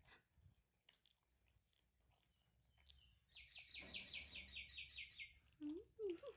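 A bird singing a fast trill of about eleven high, evenly spaced chirps lasting about two seconds, starting about three seconds in. Near the end come a few short, low, wavering voice sounds.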